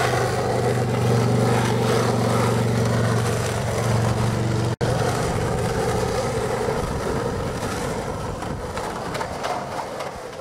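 Skateboard wheels rolling over an asphalt path, a steady rumble that cuts out briefly about five seconds in and fades near the end.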